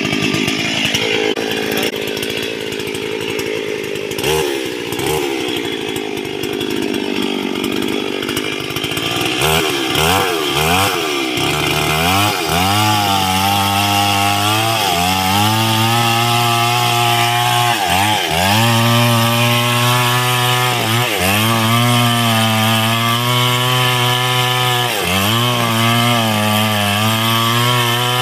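Stihl two-stroke chainsaw running, slow and unsteady at first, then revved up a few times. From about twelve seconds in it runs at high speed cutting into a tree trunk at its base, and the pitch sags briefly and recovers every few seconds as the chain bites into the wood.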